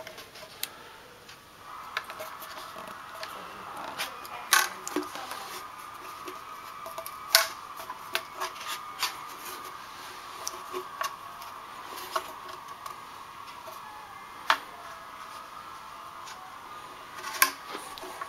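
Fingers handling and prying at a car subwoofer's metal trim ring, giving irregular sharp clicks and small taps of metal against the cone's edge and packaging, over a faint steady hum.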